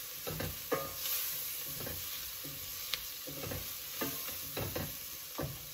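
Diced onions and ground spices sizzling in coconut oil in a stainless steel stockpot, with a wooden spoon stirring and scraping against the pot in irregular strokes.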